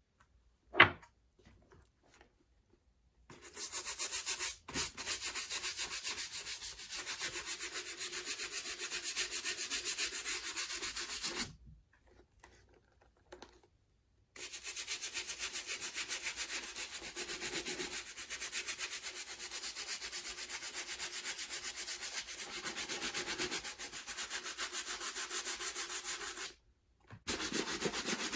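A brush scrubbing a leather boot with cleaner in rapid back-and-forth strokes, stopping briefly twice. A single sharp knock sounds about a second in, before the scrubbing begins.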